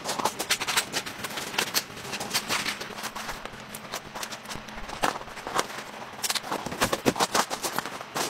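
Footsteps crunching on gravel and the clicking and clacking of a folding camp cot's metal frame being spread out and set up: an irregular string of sharp knocks and crunches.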